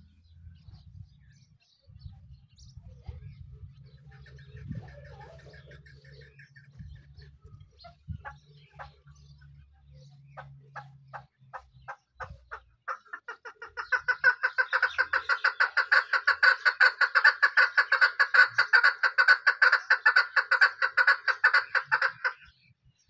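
Male partridge calling: sparse sharp notes that quicken about a third of the way in, then run together into a loud, fast, steady series of repeated notes for the last nine seconds or so, stopping abruptly near the end. A low rumble sits under the first half.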